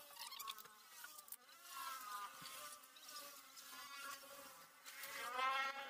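A fly buzzing, faint, its pitch wavering up and down and growing a little louder near the end.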